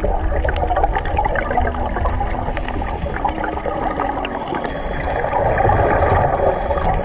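Underwater sound of scuba regulators: divers' exhaled bubbles gurgling and crackling over a steady low rumble of water.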